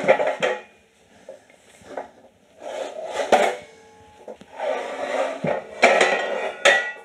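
A steel gas cylinder clanking and scraping against the welding cart's steel tilt tray and the concrete floor as it is tipped on the tray, in three bursts of metal knocks and grinding.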